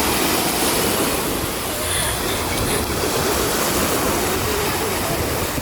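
Steady, loud rushing outdoor noise with a low rumble, the kind that wind buffeting the microphone or nearby surf makes.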